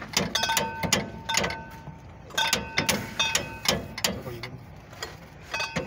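Hand tools working on a vehicle's undercarriage: a run of sharp metal clicks and knocks, several of which leave a brief metallic ring.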